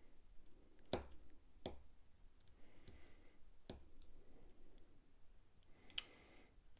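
Faint, sharp clicks of small metal knife parts and screws being handled during disassembly of a folding knife: four clicks in all, the loudest about a second in and near the end.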